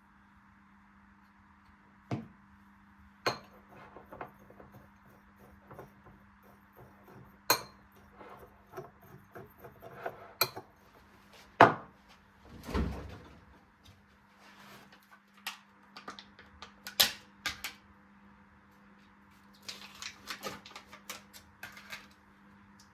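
Kitchen handling sounds: dishes and utensils clinking and knocking at irregular intervals, with one heavier low thud about 13 seconds in and a quick run of taps near the end, over a steady low hum.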